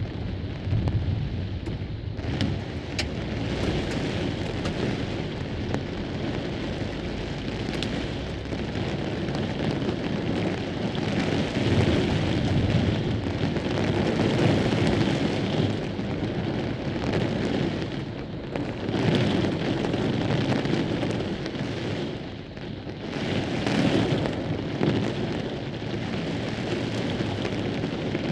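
Heavy rain with gusting wind during a severe thunderstorm; the rush swells and eases in surges every few seconds, with a few sharp clicks near the start.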